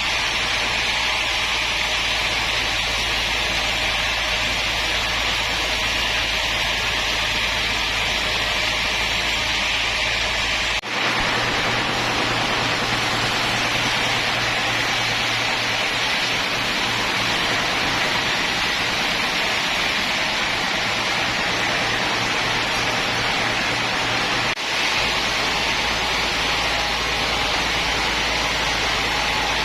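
Woodworking machinery running with a steady, even whooshing noise, with sudden edit cuts about 11 and 25 seconds in where the low hum changes.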